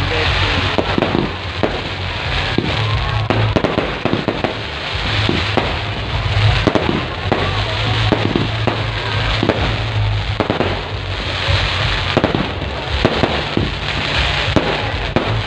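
Fireworks going off in quick succession: many bangs and crackles, one after another, with no pause.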